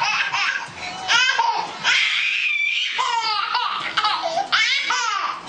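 A baby laughing hard in repeated high-pitched belly laughs, with a drawn-out squeal about two seconds in.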